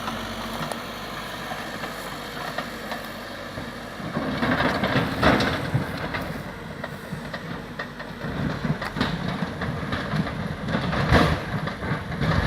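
Backhoe engine running while it digs, steady for the first few seconds, then working harder with surges of scraping and clanking from the bucket in dirt and stone about four seconds in and again in the second half, loudest near the end.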